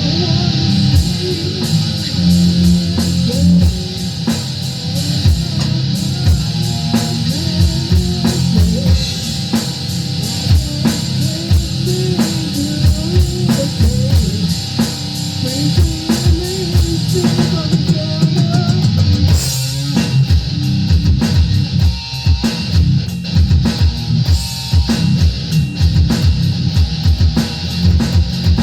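Rock music with electric guitar and a drum kit playing a steady beat, with a melody line moving above the guitar.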